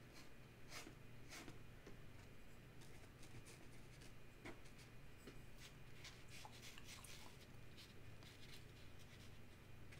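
Faint scratchy taps and strokes of a fine watercolour brush dabbing paint onto paper, in many small irregular touches, over a low steady room hum.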